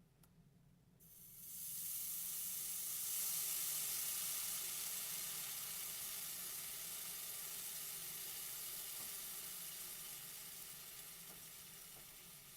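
A steady sizzling hiss starts about a second in, swells, then slowly fades.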